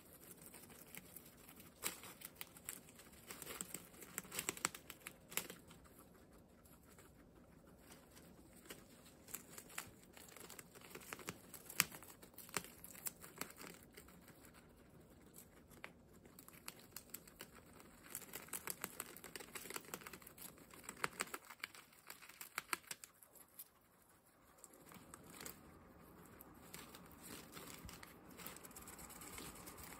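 Guinea pigs chewing and tearing long green leaves: irregular crisp crunching clicks and leaf rustling, with a few quieter seconds about two-thirds of the way through.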